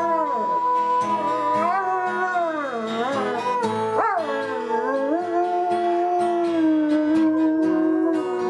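A dog howling along to guitar music, long drawn-out howls that hold a note and then slide up and down in pitch, with a quick upward swoop about four seconds in.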